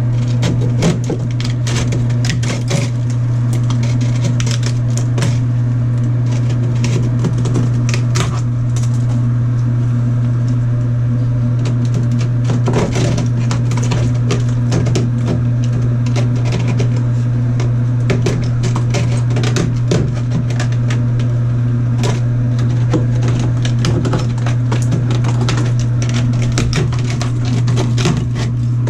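A steady low hum, unchanging throughout, with many scattered clicks, knocks and scrapes from hand work on the plumbing inside the opened shower wall.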